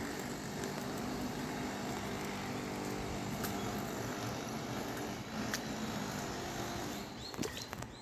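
A motor vehicle's engine and road noise, steady for several seconds and easing off near the end. A few short high falling chirps come near the end.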